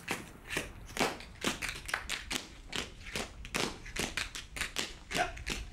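Several tap dancers' taps striking a hard floor in a rhythmic tap routine: sharp clicks, several a second, in uneven clusters.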